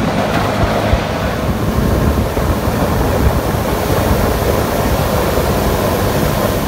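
Jet boat underway on a river: a steady low engine drone under loud rushing water and wind buffeting the microphone.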